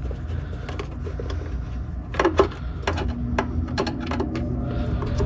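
Sharp clicks and knocks of hands working small plastic parts and fittings on a condensate pump, several in quick succession from about two seconds in, over a steady low hum; a faint steady tone joins the hum about three seconds in.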